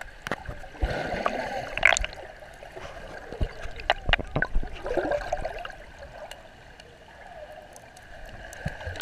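Water gurgling and sloshing around an action camera held underwater, with a muffled, uneven rush and several sharp clicks.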